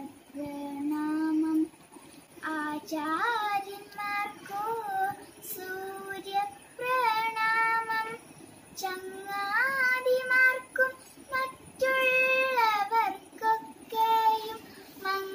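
A young girl singing a Malayalam prayer solo, in held, gliding notes with short breaks between phrases.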